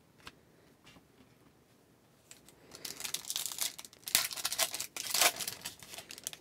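Trading card pack's plastic wrapper being torn open and crinkled by hand, in a run of sharp crackling rustles that start about two and a half seconds in, after a few faint clicks.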